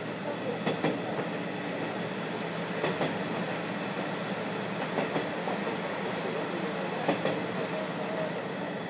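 Series 50 passenger coach running along the line, heard from inside with the window slightly open: a steady rolling rumble, with wheels clicking over rail joints in quick pairs about every two seconds.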